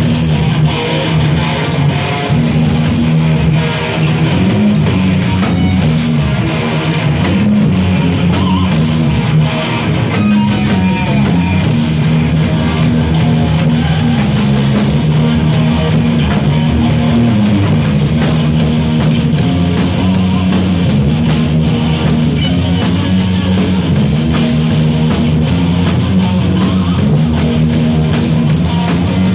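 Loud rock music with distorted electric guitar, bass and drum kit playing without a break.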